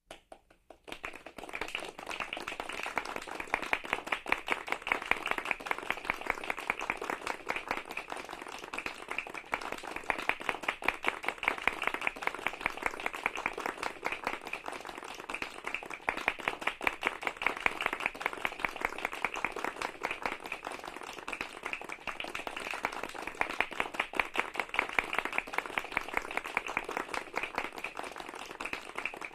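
Polite applause from a medium-sized group, many hands clapping. It starts about a second in and goes on steadily, swelling and easing in waves.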